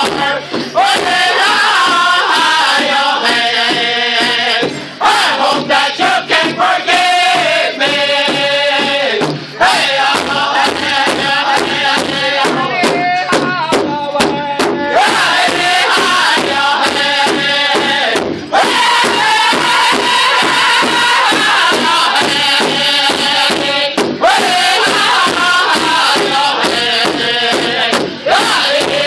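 Powwow drum group performing a song: several men singing a high-pitched chant together over a steady, evenly struck big drum, with short breaks between phrases.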